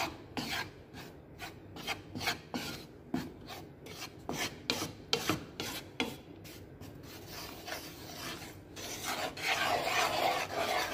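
Wooden spatula scraping and stirring dry flour and powdered milk in a metal frying pan as the flour toasts, short rasping strokes about twice a second, denser and louder near the end.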